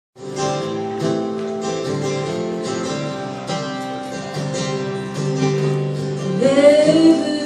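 Two acoustic guitars playing a song's introduction, strummed and picked together. A woman's singing voice comes in near the end.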